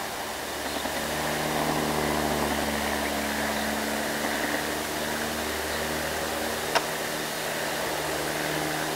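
Diesel engines of heavily loaded trucks running as they take a road bend: a steady engine hum over a constant hiss of road and air noise. A single sharp click comes about two-thirds of the way through.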